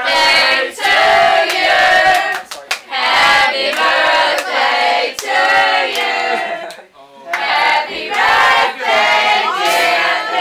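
A group of young people singing loudly together in short, overlapping phrases, with a few sharp hand claps about two and a half seconds in.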